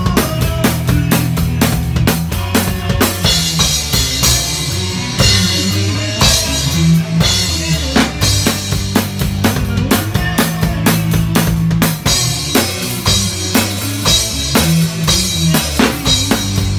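Live band playing, heard close to the drum kit: drums and cymbals loudest, with steady bass notes and electric keyboard underneath. Cymbal crashes ring out about three seconds in and again about thirteen seconds in.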